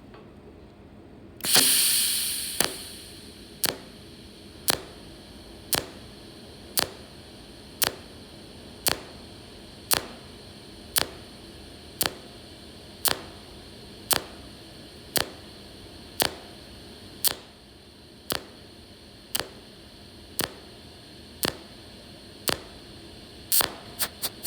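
Micro TIG welder firing short spot-weld arc pulses on thin sheet metal, each a sharp snap, about one a second. Near the start there is a louder burst of hiss that fades over about a second, and near the end the snaps come faster.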